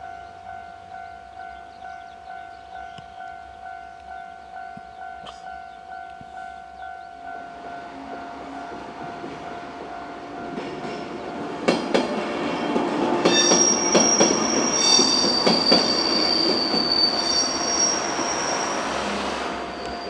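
Japanese level-crossing warning signal ringing in a steady pulse, about two and a half strokes a second. A JR 103-series electric train approaches and passes over the crossing, its sound building from about seven seconds in. From about twelve seconds in its wheels clack rapidly over the rail joints, with a high squeal on top.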